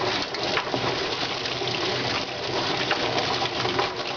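Rotary drum chicken plucker running with a chicken tumbling against its rubber fingers on the spinning plate, while a hose nozzle sprays water into the drum: a steady rush of spray with rapid irregular knocking.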